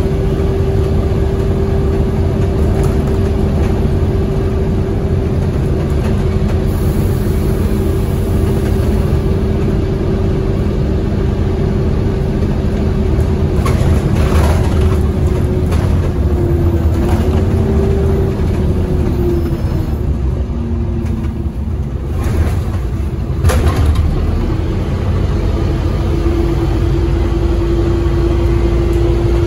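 Inside a Scania OmniCity single-decker bus on the move: the engine and drivetrain run with a steady whine over road noise. The whine wavers and fades about two-thirds of the way through, then comes back. Two short knocks are heard, about halfway and again near the fade.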